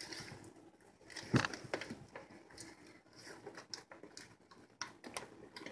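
Red silicone spatula stirring and scraping thick cocoa cake batter round a mixing bowl: irregular soft scraping and squelching strokes, with a louder knock about a second and a half in.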